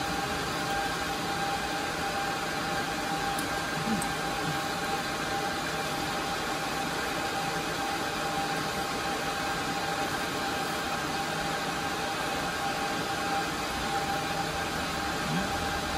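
Cooling fans of rack-mounted network switches and servers running steadily: an even whir with a constant whine.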